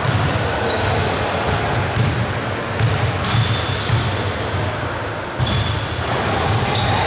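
Basketball bouncing on a gym court amid a steady hall din, with a few short high squeaks.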